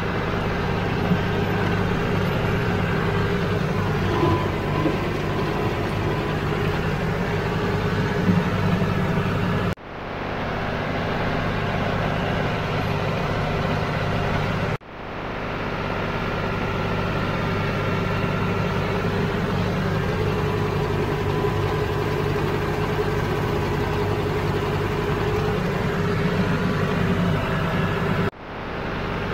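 Farm tractor engine running steadily as the tractor drives along a dirt track. The sound drops out abruptly three times and fades back in.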